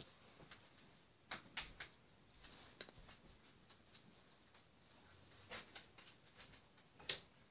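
Near silence: room tone with a few faint scattered clicks and taps.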